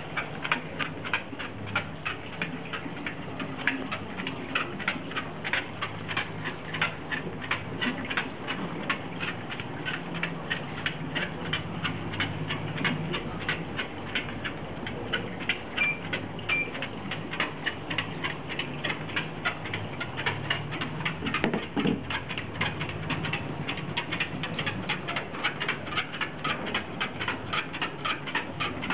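A dachshund walking on a running PetRun PR720F dog treadmill: even clicks about three to four a second from its steps on the moving belt, over the treadmill's low steady hum. Two short beeps sound about sixteen seconds in.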